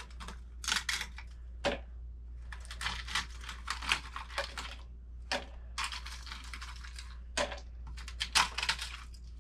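Ice cubes being popped out of a plastic ice cube tray and dropped into a blender jar: a run of irregular clicks, cracks and clinks.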